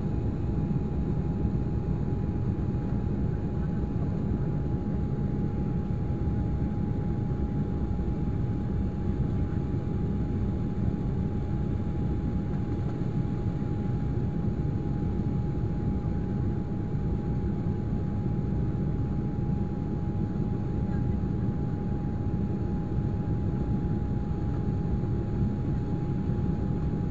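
Cabin noise inside an Embraer E195 climbing after takeoff: the steady low rumble of its GE CF34-10E turbofans and the airflow, with a thin steady whine running through it.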